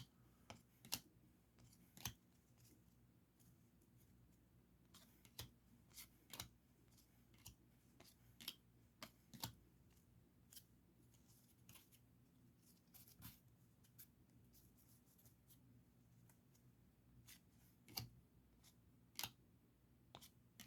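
Faint, irregular clicks and flicks of baseball trading cards being handled and slid one by one off a stack, over a faint steady low hum.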